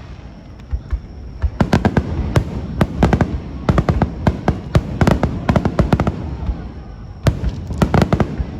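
Aerial fireworks bursting in rapid clusters of sharp bangs and crackles, with a short lull about a second in and another just before the last second or so, when the volleys resume.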